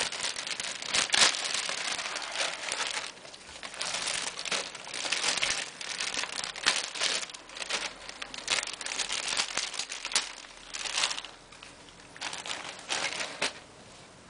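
Plastic packaging crinkling and rustling in bursts as a new keyboard is unwrapped by hand.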